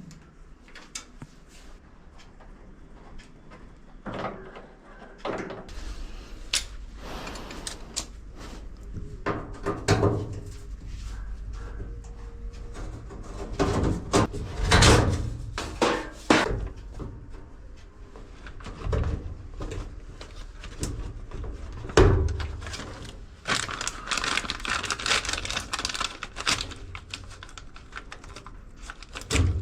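Irregular knocks, clicks and clatter of a top-load washing machine's plastic and metal parts being handled as it is opened up for repair, with a denser stretch of scraping noise about 24 seconds in.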